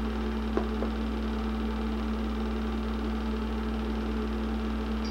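Film projector running: a steady motor and fan hum with a constant low drone, and a single light click about half a second in.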